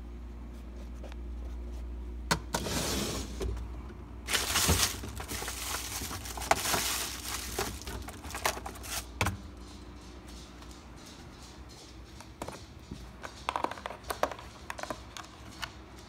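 Things being handled in an open refrigerator: irregular rustling and clinks of bottles, cans and plastic packaging, busiest from a few seconds in until about nine seconds. A low steady hum underlies the start, and scattered lighter clicks follow near the end.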